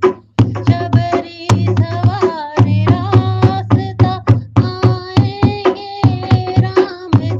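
Devotional bhajan music: a sliding melody held over a steady beat of hand-drum strokes, several a second.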